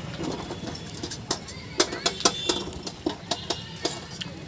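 Irregular sharp clicks and light metallic clinks, several a second, starting about a second in: crisp panipuri shells being cracked open with the thumb and knocked against a steel plate.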